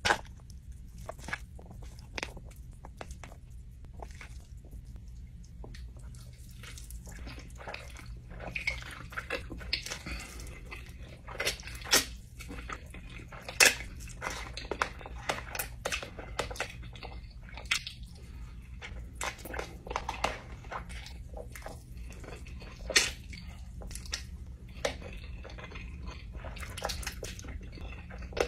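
Close-up eating of extra-spicy instant ramen: noodles slurped and chewed, with a metal fork clicking and scraping against a plastic tub. The sounds are short and irregular, a few sharper ones standing out, over a faint low hum.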